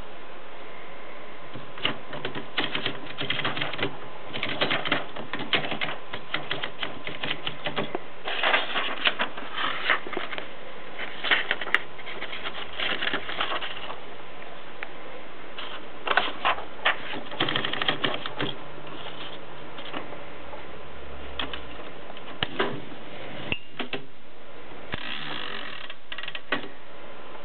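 1923 Adler No. 7 manual typewriter being typed on: runs of quick, sharp key strikes in bursts with short pauses between them.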